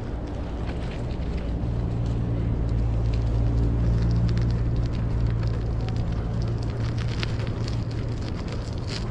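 Low rumble and hum of a vehicle engine, growing a little louder through the middle and easing off, with scattered light crackles.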